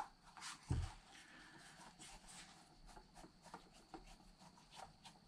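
Faint clicks and scrapes of a Phillips screwdriver backing screws out of a small plastic-cased power inverter, with a dull knock near the start.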